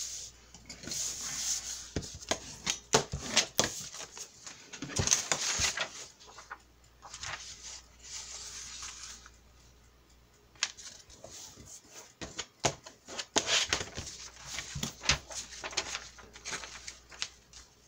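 Adult coloring book pages rustling, sliding and being handled on a cutting mat, in irregular bursts with sharp taps and clicks among them.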